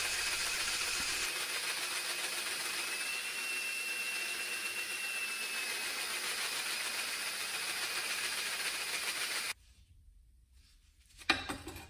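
Worn 1¼-inch hole saw, driven by a cordless drill in a tube-notcher fixture, cutting through a steel square-tube slider: a steady hiss with a thin high squeal. The saw is down to about one tooth. The cutting stops suddenly about nine and a half seconds in, and a few brief metal knocks follow near the end.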